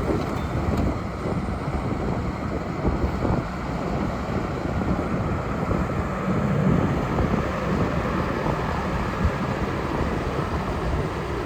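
Four-cylinder diesel engine of a Kobelco SK170LC hydraulic excavator running steadily.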